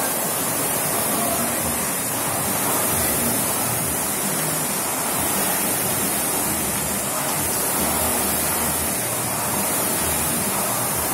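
Several air-resistance rowing machines pulled at the same time, their flywheel fans blending into a steady rushing whoosh.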